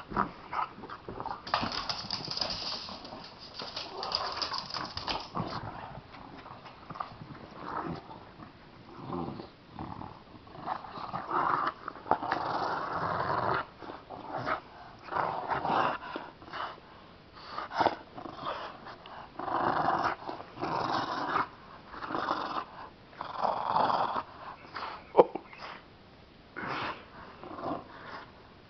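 A bulldog and a chihuahua growling in rough play, in short irregular bursts with brief pauses between.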